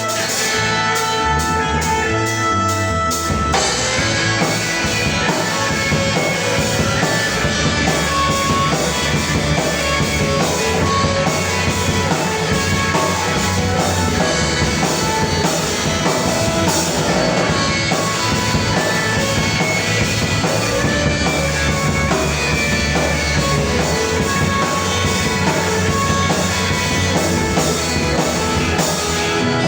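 Live band playing an instrumental passage on drum kit and guitar. It opens with a sparser part of held notes over a steady ticking beat, and the full band comes in about three and a half seconds in.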